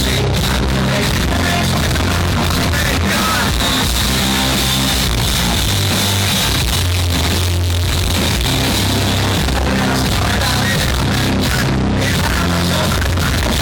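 Hard rock band playing a song live, loud and steady, with heavy bass and drums.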